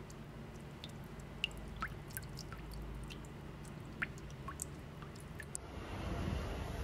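Scattered faint ticks and small drip-like plinks, irregular and about fifteen in all, over a low steady ambient rumble. The background changes about five and a half seconds in.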